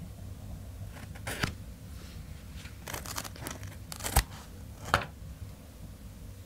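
Scissors snipping through goat hair on a hide: a handful of short, crisp cuts spread over a few seconds, the loudest about four and five seconds in.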